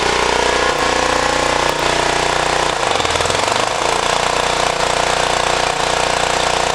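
Kohler 8RESV 8 kW propane standby generator running steadily under load, its note wavering briefly about three seconds in.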